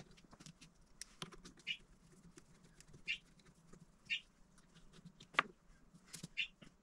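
Hands fitting a cable on a laser engraver's metal frame: scattered light clicks and rattles of cable and plastic parts, a few short high squeaks, and one sharper click about five seconds in.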